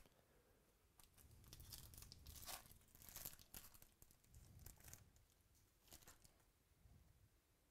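Faint tearing and crinkling of a Topps Chrome baseball card pack's shiny foil wrapper being ripped open by hand. It comes as a run of short rustling tears, loudest in the middle.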